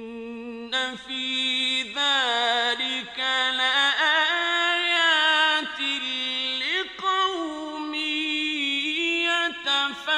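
A male reciter chanting the Quran in the melodic mujawwad style: a single voice holding long notes that glide and waver in ornamented runs, broken by a few short pauses.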